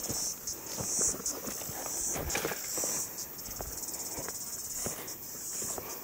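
Footsteps crunching on dry leaf litter and twigs, irregular and uneven, under a steady high-pitched chorus of insects.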